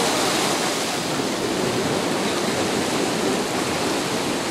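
Fast current rushing and churning through a concrete-lined canal, a steady loud rush of water.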